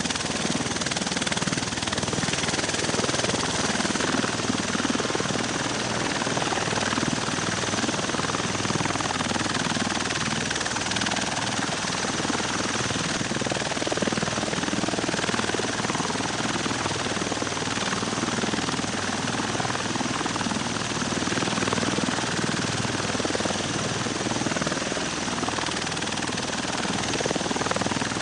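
V-22 Osprey tiltrotor's proprotors and turboshaft engines running steadily, an even, unbroken rotor and turbine noise.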